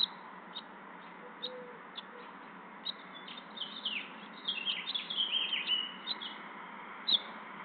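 Small songbirds chirping: short high chirps every second or so, with a run of quick twittering about halfway through and a sharper chirp near the end, over a steady hiss.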